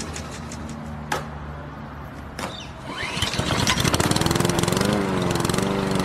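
A small engine starts about three seconds in and runs with a rapid, even putter, its pitch wavering slightly; before it, a low steady hum and a sharp click about a second in.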